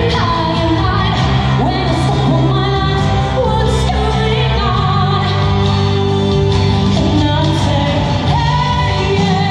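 A woman singing a song live into a microphone over an instrumental backing track, holding long notes.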